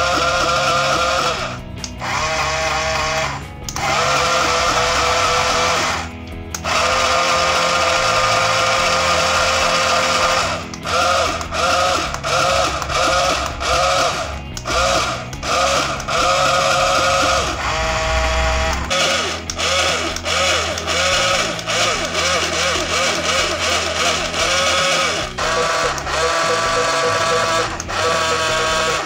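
Small yellow DC gear motors driving a cardboard robot's two wheels, whining as remote-control push buttons switch them on and off: a few long runs first, then many quick stop-starts.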